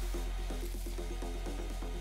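Electronic background music: a steady deep bass under a quick, repeating melodic figure of about four to five notes a second.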